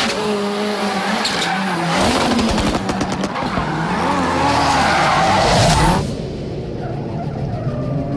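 Ford Fiesta rally car's engine revving up and down while its tyres squeal and skid as it slides. About six seconds in the tyre noise cuts off abruptly, leaving a lower, steadier engine note.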